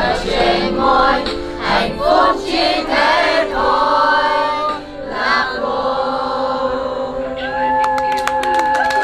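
Music with voices singing together, ending on long held notes. A few sharp clicks come near the end.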